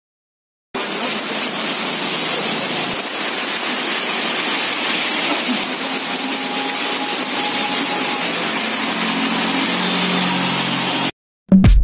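Heavy rain pouring down onto a wet road, a steady dense hiss that starts under a second in, with the engine of a passing vehicle faintly audible under it in the later part. The rain cuts off suddenly near the end and electronic dance music with a beat starts.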